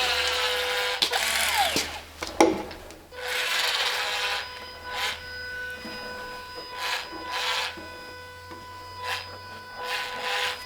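Rasping and rubbing of a tool on wood in a series of strokes: two long ones at the start, then shorter strokes spaced a second or two apart.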